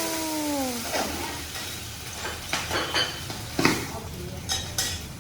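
Oysters sizzling on a hot teppanyaki griddle, the hiss dying down over the first second, then metal spatulas clinking and scraping on the steel plate in a string of sharp clicks.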